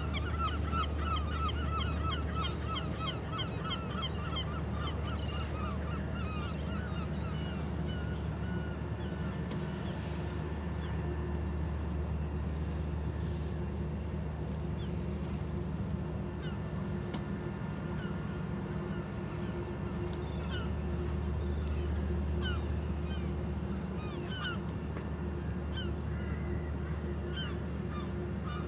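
Steady low hum of a passing cruise ship's engines and machinery, with a flock of birds calling: a rapid run of short calls for the first six seconds or so, then scattered single calls.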